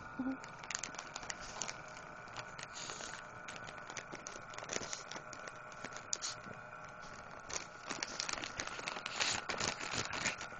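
Plastic dog-treat bag crinkling and crackling as a pug rips at it and pushes its muzzle inside, in irregular bursts that get busier in the second half.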